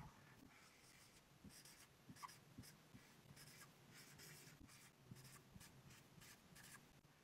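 Faint chisel-tip marker writing, its felt tip scratching in many short, quick strokes as letters are drawn.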